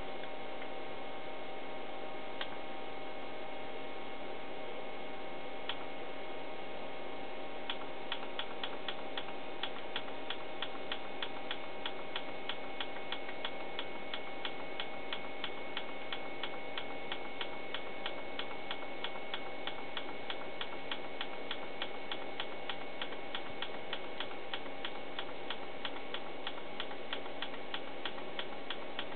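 Tektronix 2445B oscilloscope clicking as its calibration-data exercise steps through memory addresses. A few scattered clicks come first, then from about a quarter of the way in a regular clicking about three times a second, one click per address step, over a steady hum.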